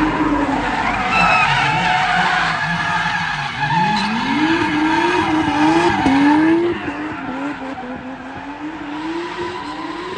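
Drift car sliding with its tyres squealing loudly while the engine revs rise and fall in quick repeated pulses. The squeal and engine drop off noticeably about two-thirds of the way through.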